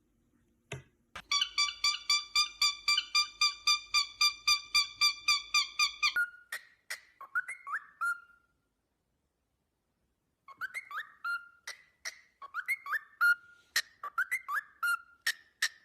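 A pet parrot whistling. First comes a fast run of one short note, repeated about five times a second for about five seconds. Then come short up-and-down chirping phrases with sharp clicks between them, broken by a brief silence.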